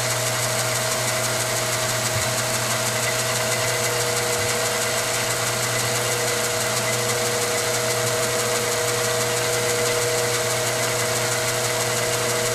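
Milling machine spindle running steadily as an end mill plunges through the wall of a metal shotgun-brake tube, cutting a port, with a constant hum and two steady tones.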